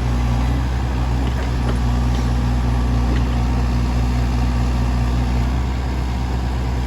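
Kubota mini digger's diesel engine running steadily, a low even hum, with a few faint knocks while it works the log grab.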